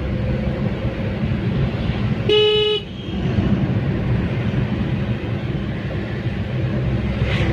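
Steady road and engine rumble of a moving car heard inside its cabin, with one vehicle horn blast about half a second long a little over two seconds in.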